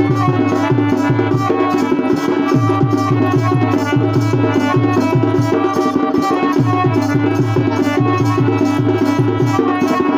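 Instrumental passage of Karam folk dance music: a steady quick beat of low drum strokes that bend down in pitch, under held melody notes.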